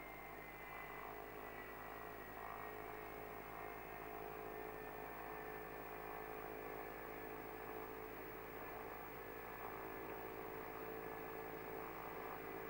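Jet engines of a McDonnell Douglas MD-83, its two rear-mounted Pratt & Whitney JT8D turbofans running as a steady whine made of several tones, heard from a distance. A higher tone slides slowly down in pitch near the start.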